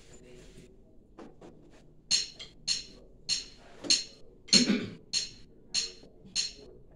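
Drumsticks clicked together eight times at an even tempo, a little under two clicks a second: a count-in before the band starts.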